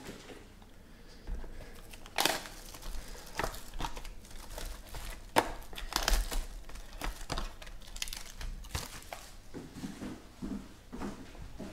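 Clear plastic shrink-wrap on small trading-card boxes being crinkled and torn open by hand. It starts about a second in as irregular sharp crackles, which thin out near the end.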